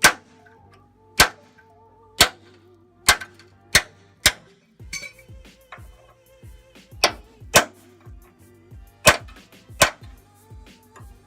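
Hammer striking a steel punch to drive drilled-out rivets from a Ford F250 truck frame: about ten sharp metallic blows, irregularly spaced, with a pause of a couple of seconds midway. Soft background music plays underneath.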